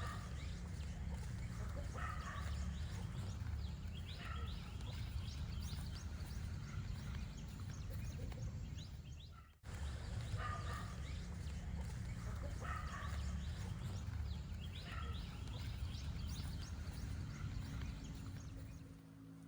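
Bird calls over a steady low rumble. The sound breaks off briefly about ten seconds in, and the same stretch then plays again.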